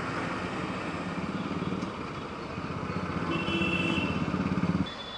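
Bajaj Pulsar RS 200 single-cylinder engine running while riding in traffic. It picks up in pitch and loudness about three seconds in, then the sound drops off suddenly near the end.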